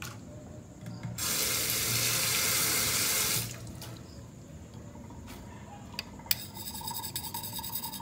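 Water running from a kitchen tap for about two seconds, then shut off. Two sharp clicks follow about six seconds in, then a faint pulsing hum with a steady tone.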